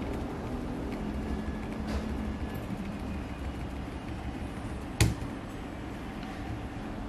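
Keys tapped on a laptop keyboard during a restart: a few faint taps, then one sharp loud click about five seconds in, over a steady low rumble.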